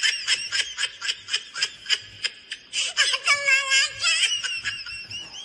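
Hearty high-pitched laughter in rapid bursts, about six a second, breaking into a longer held cry about three seconds in and wavering squeals near the end.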